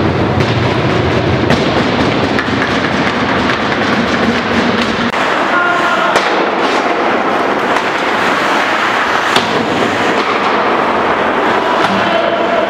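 Ice hockey play in a reverberant indoor rink: skates scraping the ice and sticks and puck clacking over a steady wash of noise, with sharp knocks about six and about nine seconds in.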